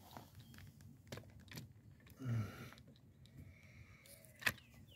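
Handling noise from a phone camera being positioned: scattered small clicks and rubs, a dull thump a little after two seconds in, and one sharp click about four and a half seconds in.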